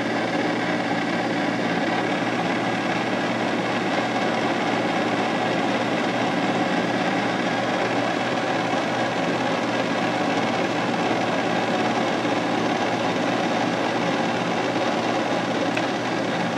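Manual engine lathe running steadily under power feed during a single-point threading pass, a carbide threading insert taking the first cut, about 10 thousandths deep, on a shock shaft.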